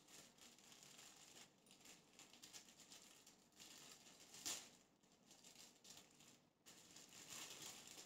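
Faint rustling and crinkling of clear plastic product packaging as it is handled and opened, with a louder rustle about four and a half seconds in.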